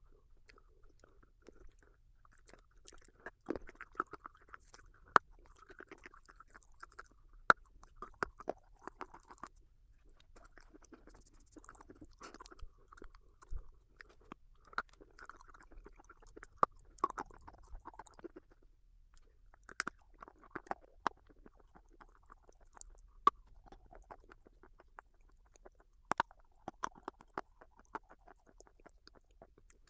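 Close-miked chewing of crunchy red dusty stone (edible clay), with irregular sharp crunching snaps between softer mouth sounds.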